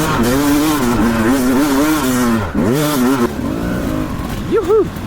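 Beta 200 two-stroke dirt bike engine revving on and off the throttle, its pitch wavering up and down, dropping and climbing sharply about two and a half seconds in. Near the end, two quick rev blips rise and fall.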